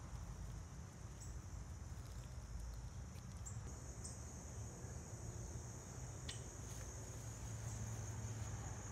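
Insects trilling in a steady, continuous high-pitched chorus that comes in about a second in and grows louder around four seconds, over a low rumble.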